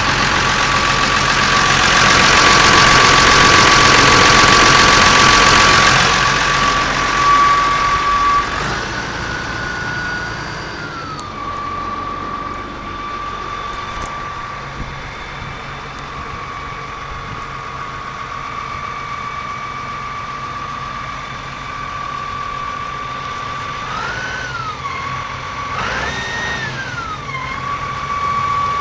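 Massey Ferguson 6180 tractor's diesel engine running near idle with a steady high whine over its low hum. The whine rises in pitch and falls back once about nine seconds in and twice more near the end. A louder rushing noise sits over the first few seconds.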